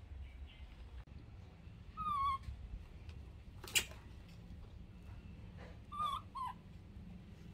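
Baby monkey giving short whimpering calls that fall in pitch: one about two seconds in, then two close together about six seconds in. A single sharp click comes between them.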